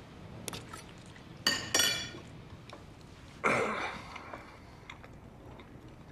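Cutlery clinking against dishes twice in quick succession, each strike ringing briefly, then a short rustling noise about two seconds later.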